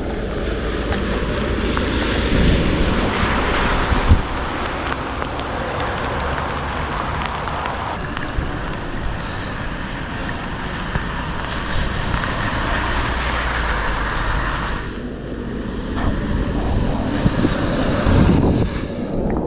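Steady rushing noise of fast-flowing floodwater, with wind buffeting the microphone.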